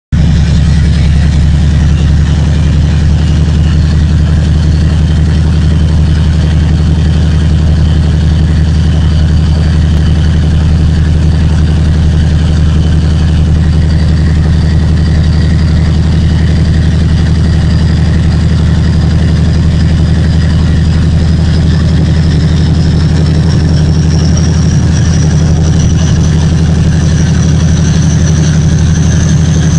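2TE10M diesel locomotive's 10D100 two-stroke opposed-piston diesel engine running hard under load on a rheostat test, its exhaust stacks sounding a steady deep drone. A high whine climbs slowly in pitch through the second half as the load holds.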